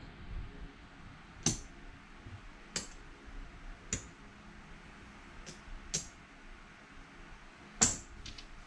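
Casino chips clicking against each other as stacks are picked up and set down to move bets, about six sharp, separate clicks at uneven intervals, the loudest near the end.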